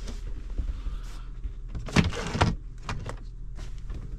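A window blind in a motorhome being slid open, a loud rasping slide about two seconds in, with small knocks and clicks around it.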